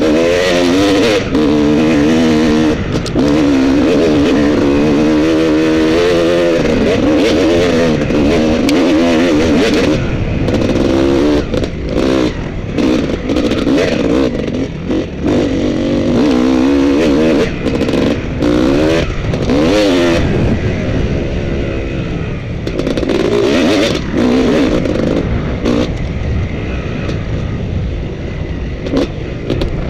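Off-road dirt bike engine, heard from the rider's helmet, revving up and easing off again and again as the throttle is worked along a twisting trail, with short knocks and clatter from the bumps.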